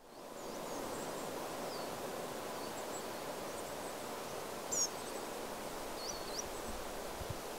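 Forest ambience: a steady rustling hiss of wind in the trees, with small birds chirping high and thin throughout. The loudest chirp comes about five seconds in and a short twitter follows about a second later.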